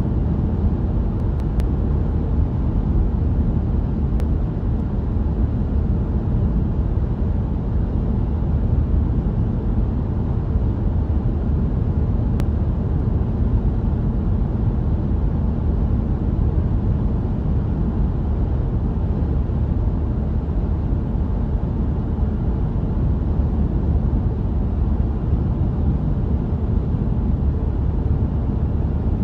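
Dubbed-in sound effect of a moving car: a steady low rumble of engine and road noise that holds even throughout.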